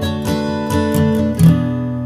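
Background music: acoustic guitar strumming chords, a final strum about one and a half seconds in left to ring.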